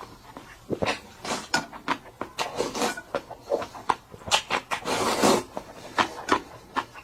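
Close-up eating sounds: irregular short clicks and knocks with chewing, and a louder wet rustling stretch about five seconds in.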